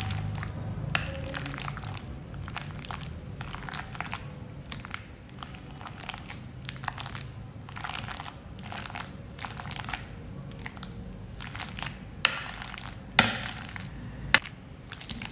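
Metal masher pressing sliced bananas in a glass bowl, mashing them lightly: soft squishing with many quick clicks and taps of metal on glass, and three sharper knocks near the end.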